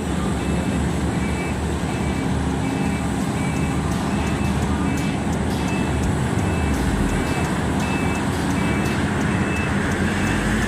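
Heavy mining machinery running with a deep, steady rumble, over which a reversing alarm beeps in short, evenly spaced tones about once a second.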